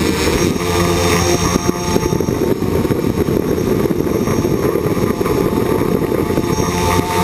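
Electric motors and propellers of a small remote-controlled aircraft, heard from the camera it carries, running with a steady buzz and rushing air noise.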